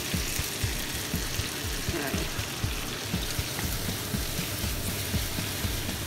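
Pear slices sizzling and crackling in butter and honey in a frying pan, the heat just turned off. The pan is tossed once to turn them about midway.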